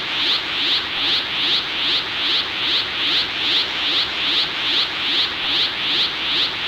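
Dragon Ball Super Saiyan 1 aura sound effect: a steady, hissing, crackling energy rush with a fast, even pulse, looped without change.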